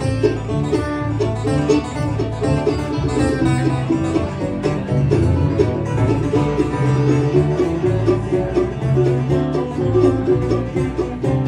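Bluegrass band playing an instrumental break: fast banjo picking over guitar and a moving bass line, with no singing.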